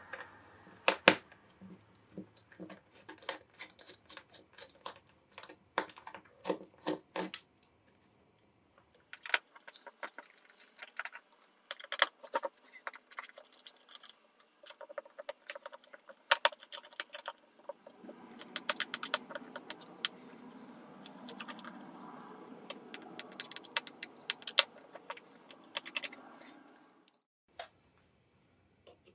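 Small screwdriver removing the screws from a Seagate 500 GB SATA hard drive's metal case: irregular metallic clicks and ticks of the bit in the screw heads and loose screws clinking, with a longer stretch of steady scraping in the second half. It stops about two seconds before the end.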